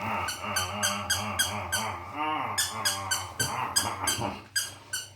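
Squeaky plush dog toy squeaking over and over as a puppy bites and chews it, about four squeaks a second with a short break about two seconds in.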